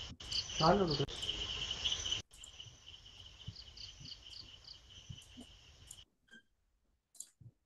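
Crickets chirping steadily, picked up by a night-time security camera's microphone, with a brief loud wavering call like a voice about half a second in. The sound cuts off suddenly about six seconds in, leaving near silence with a few faint clicks.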